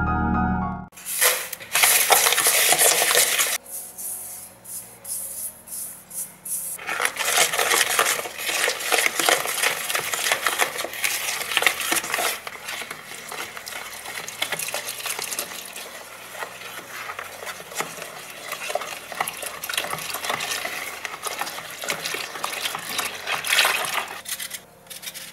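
Hand whisk beating egg yolks, sugar and flour for pastry cream in a mixing bowl: a fast, continuous run of scraping clicks as the wires strike the bowl, lighter and more spaced for a few seconds after the start. A snatch of mallet-percussion music cuts off within the first second.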